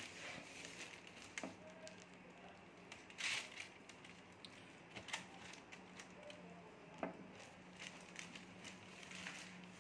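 Faint rustling and crinkling of plastic wrap with scattered light knocks as a plastic-wrapped lighting console is handled, lifted and set down on its flight case; the loudest rustle comes about three seconds in. A faint steady low hum runs underneath.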